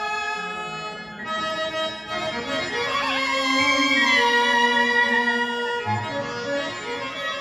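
Traditional Indian theatre music from a harmonium-type reed instrument, holding long notes with a melody line that bends in pitch around the middle, growing louder towards the middle.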